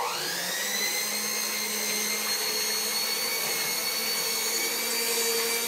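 Electric kitchen mixer switching on and beating cake batter: its motor whine rises as it spins up in the first half second, then runs steadily.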